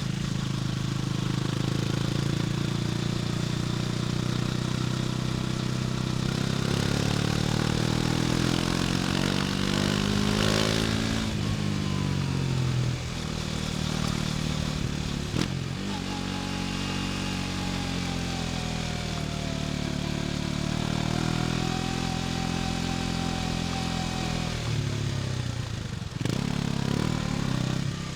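KTM Duke 250's single-cylinder engine running under way: the revs climb for several seconds, drop suddenly about eleven seconds in, hold fairly steady, fall off near the end and then rise again.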